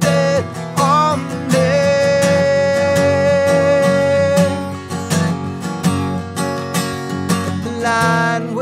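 Male voice singing a long held wordless note over strummed acoustic guitar, then a few seconds of guitar alone before the voice comes back near the end.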